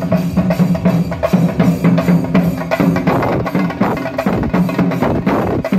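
A group of chenda drums beaten with sticks in a fast, dense rhythm, many drummers playing together.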